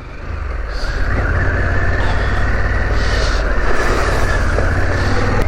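Harley-Davidson Pan America's 1250 cc V-twin engine running with the bike under way, over a steady rushing noise; the engine note picks up over the first second, then holds.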